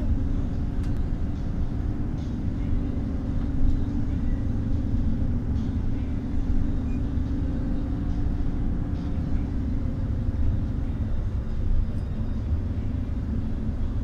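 Bus driving along, heard from inside the passenger cabin: a steady low rumble of engine and road noise, with a few faint clicks.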